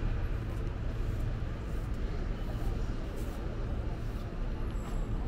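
City street noise: a steady rumble of road traffic with a hum of background activity.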